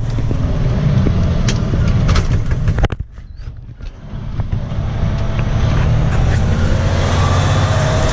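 Truck engine running steadily, with a few sharp clicks in the first two seconds. About three seconds in the sound drops away suddenly, then builds back up over the next second or so and runs on steadily.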